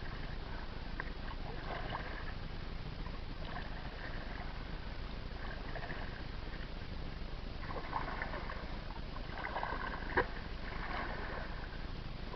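Water splashing and lapping around a kayak, in soft bursts every second or two like paddle strokes, over a steady low rumble, with one sharp knock about ten seconds in.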